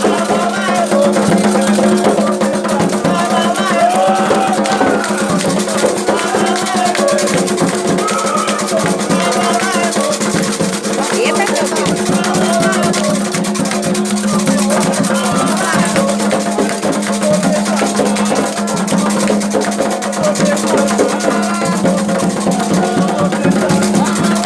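Candomblé ritual music: hand drums and shaken rattles keeping a steady rhythm, with singing voices over them.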